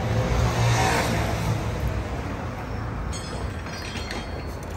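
Modern Jawa Classic motorcycle's single-cylinder engine idling steadily, swelling briefly about a second in.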